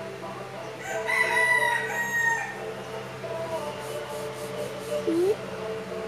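A rooster crowing once in the background, one long call starting about a second in and lasting about a second and a half.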